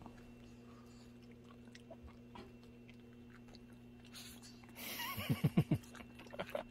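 Small dogs chewing and crunching treats taken from a hand, faint with scattered soft clicks. About five seconds in comes a quick run of four or five short low vocal sounds.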